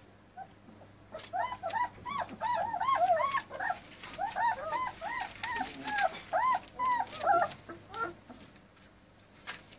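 Three-week-old German Shepherd puppies whimpering: a rapid run of short rise-and-fall cries from several puppies at once, starting about a second in and dying away after about seven seconds.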